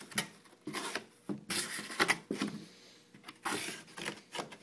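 Cardboard box flaps and packing inserts rubbing and scraping as they are handled, in several short, irregular rustling bursts.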